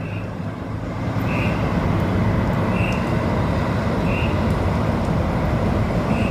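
A bird repeating a short, whistle-like single note about every second and a half, over a steady hum of street traffic.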